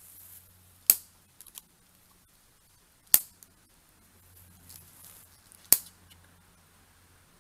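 The piezo igniter of a long-nosed butane utility lighter snapping three times, sharp clicks about two and a half seconds apart, as it is tried against a pile of clothing.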